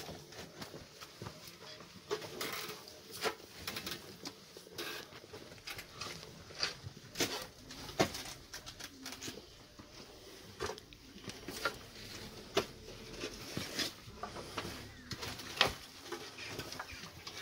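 Irregular sharp knocks and scrapes, one or two a second, over a faint background hiss.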